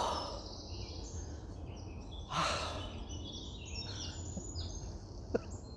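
Woodland birds singing with short repeated high calls, and a man's single loud breathy sigh about two and a half seconds in.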